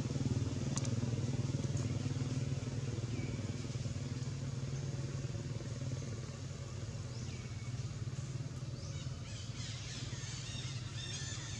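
A small engine running steadily, slowly fading, with a few short high chirps over it and some faint crackling near the end.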